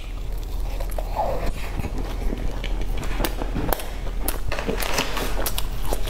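Close-up chewing of a bite of crumb-coated pastry with the mouth closed: an irregular run of small crunches and mouth clicks, over a steady low hum.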